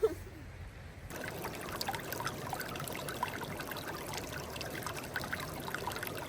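Water trickling steadily, with many small bright plinks and gurgles, starting about a second in.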